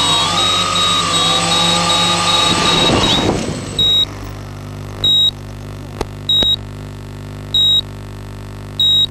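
Octocopter's electric motors whining at several pitches with a rapid high beeping over them, then winding down steeply about three seconds in as the craft sets down and the motors stop. After that a steady low hum, a high electronic beep repeating a little more than once a second, and a couple of faint clicks.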